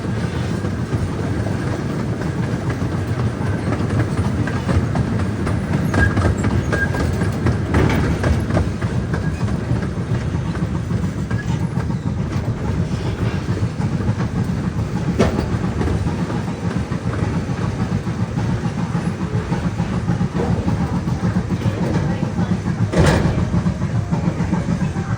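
Park sightseeing train rolling along its track, heard from aboard: a steady rumble of the cars with a few sharp clacks of the wheels, the loudest one near the end.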